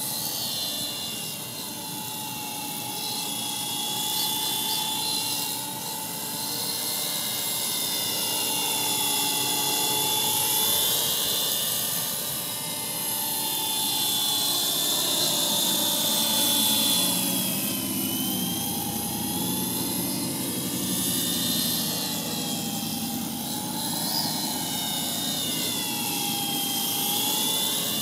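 Small fixed-pitch brushless RC helicopter (MJX F49) flying: a high motor-and-rotor whine whose pitch wavers up and down as the throttle changes the rotor speed.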